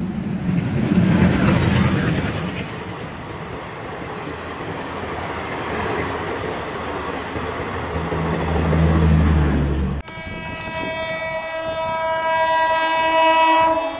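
A passenger train runs past with a steady rumble. After an abrupt cut about ten seconds in, the horn of an approaching WAP-4 electric locomotive sounds as one long multi-tone blast.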